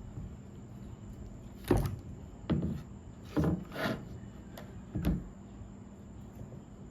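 Freshly bandsawn dogwood pieces being handled and opened up: about five wooden knocks and clunks in a few seconds, with some rubbing between them.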